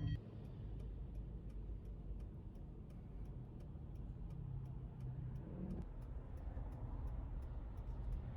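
Car turn signal ticking evenly, about two to three clicks a second, over a faint low rumble of the car inside the cabin.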